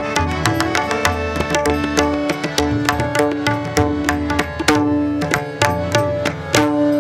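Instrumental passage of a Varkari devotional bhajan with no singing: a hand drum beats a steady rhythm under held melody notes, with bright, rapid cymbal strikes throughout.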